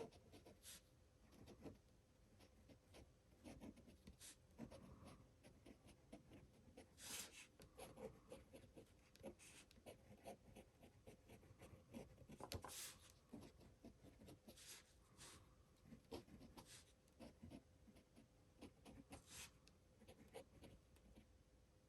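Montblanc 221 fountain pen with a fine 14K gold nib writing on paper: faint, irregular little scratches and ticks of the nib moving across the page.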